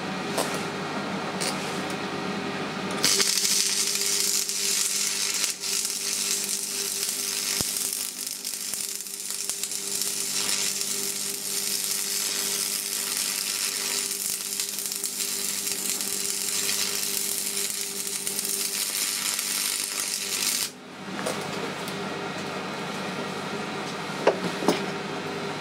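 Stick (manual metal arc) welding: the electrode's arc crackles and hisses steadily for about 18 seconds as a weld is run round the inside of a nut to grip a broken stud, then cuts off suddenly. A steady hum runs underneath throughout.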